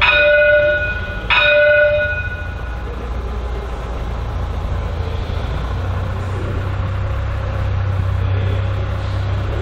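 Bombardier Flexity E-class tram's gong sounding twice, a second and a bit apart, each ding ringing out for about a second. A low steady hum from the tram comes in about halfway through as it rolls slowly forward.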